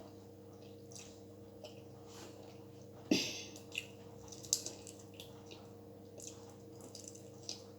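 Faint mouth sounds of eating chicken feet: soft wet chewing and small clicks, with a louder smack about three seconds in and another sharp click a little later, over a steady low hum.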